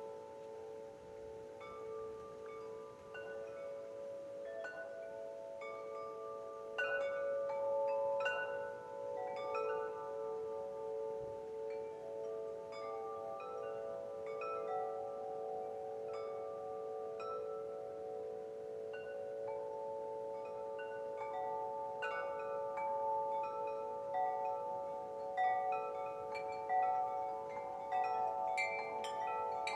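Wind chimes ringing gently, with many metal tones struck at irregular moments and overlapping as each one rings on.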